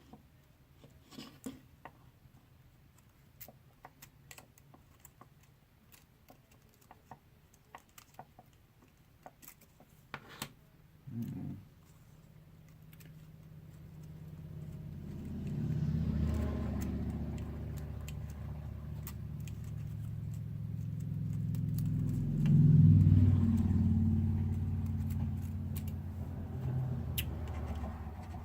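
Light clicks and taps of small parts being handled during the first half. From about halfway, a low engine rumble builds up, loudest a little before the end.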